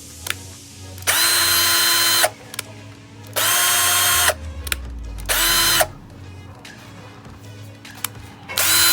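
SCANS SC1180-1 20V cordless drill driver running in four short bursts of about one second or less, its motor whine starting and stopping abruptly, with a few small clicks between the runs.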